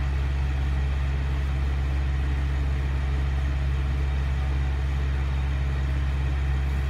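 Semi truck's diesel engine idling: a steady low drone that holds an even level throughout.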